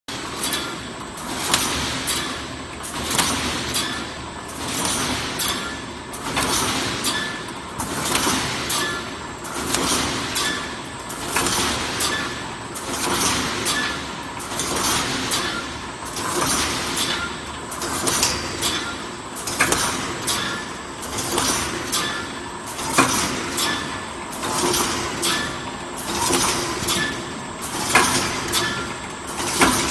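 Wire mesh panel welding machine running, with its row of welding heads firing on the cross wires in a repeating cycle of clattering strokes about every one and a half seconds.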